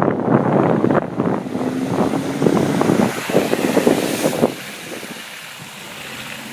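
Wind buffeting the microphone in uneven gusts over floodwater, easing about four and a half seconds in to a quieter, steady hiss.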